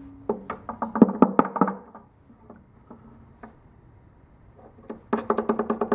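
Quick runs of light knocks and clicks as a brass air-compressor check valve is worked apart by hand over a wooden bench: one flurry in the first two seconds, quieter handling, then another flurry near the end.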